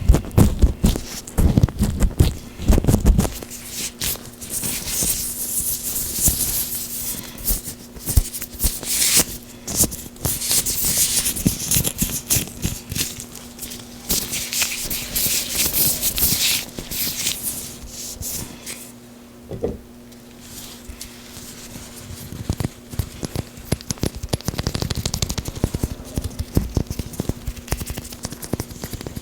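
Oiled gloved hands rubbing and squishing close to the microphone: dense sticky clicks and crackles, with stretches of hissy rubbing that ease off for a few seconds past the middle before the crackling picks up again.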